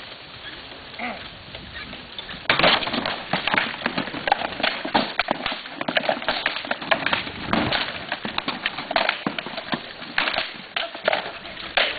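Mock-battle melee: practice weapons knocking against shields and armour in a fast, irregular clatter of hard knocks, starting about two and a half seconds in.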